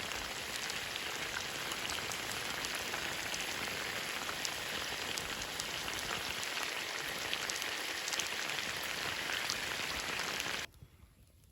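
A steady hiss dotted with many fine ticks, which cuts off abruptly near the end.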